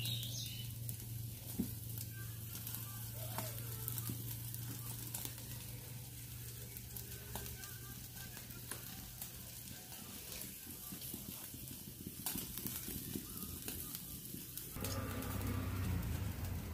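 Pork ribs sizzling on a wire grill over charcoal, with scattered small crackles. A steady low hum runs underneath and changes about 15 seconds in.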